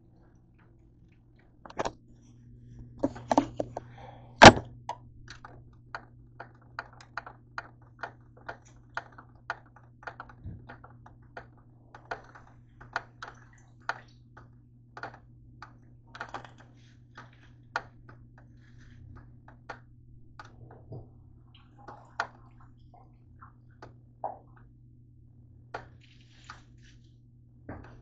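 Knife cutting cabbage on a cutting board: irregular sharp knocks and clicks, about one or two a second, with one louder knock about four seconds in, over a steady low hum.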